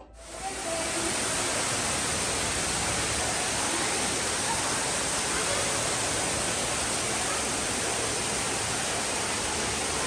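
Artificial waterfall pouring down a rock wall: a steady rush of falling water that comes up within the first second and holds unchanged.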